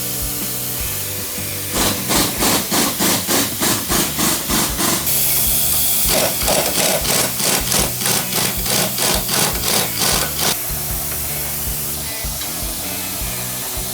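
Rhythmic rasping strokes of a hand tool, about three a second, starting about two seconds in and stopping about three seconds before the end, with a short continuous hiss partway through, over background music.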